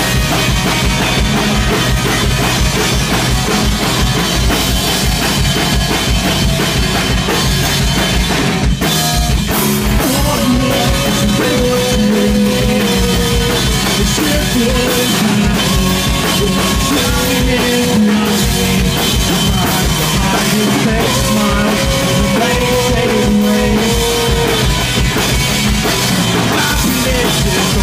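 Live rock band playing loud, with electric guitars over a driving drum kit of bass drum and snare. About ten seconds in, held melody notes come in over the drums and keep returning.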